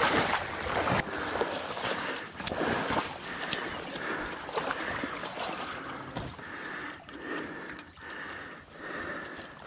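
Water sloshing as someone wades through shallow marsh water, then rustling of tule reeds and gear as ducks are handled, with a few light knocks.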